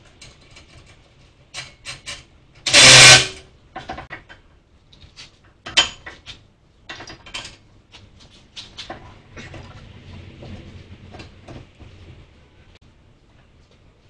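Front brake work: scattered metal clinks and taps of brake parts and hand tools, with one loud burst of about half a second from a tool about three seconds in.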